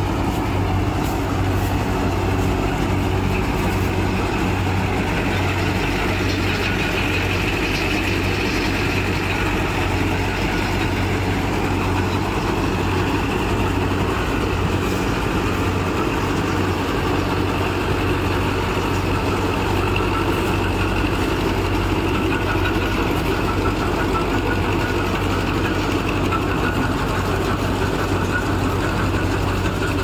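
Farmtrac 6055 tractor's four-cylinder diesel engine running steadily with its mounted Panesar TMC 800 combine harvester. It is a continuous, even drone with a steady low hum.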